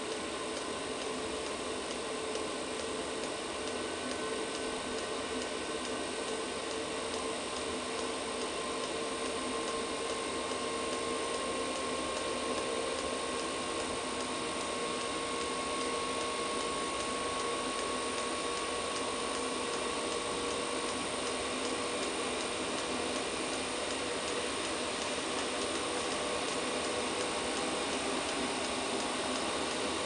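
Chinese 5 kW planar-style diesel air heater running: a steady whir from its fan and burner, its pitch drifting slightly, with a fast, even ticking typical of the fuel dosing pump.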